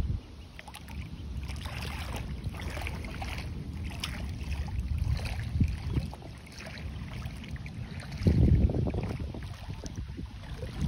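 Shallow water sloshing and splashing, with gusts of wind rumbling on the microphone, loudest about eight seconds in.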